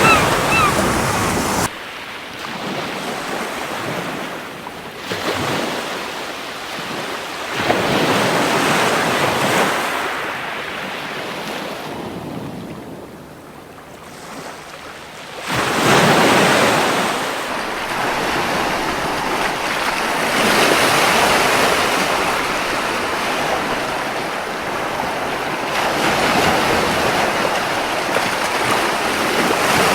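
Ocean surf washing onto a beach in repeated surges, falling to a lull and then rising again with a loud wave about halfway through. At the very start a seagull gives a quick run of short calls, and the level drops suddenly just under two seconds in.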